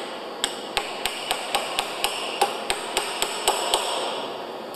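Hammer tapping a chisel into a steel split ring on a concrete pump's piston adapter clamped in a bench vise: about a dozen sharp metal strikes at roughly four a second, cutting a groove to split the ring. The tapping stops shortly before the end.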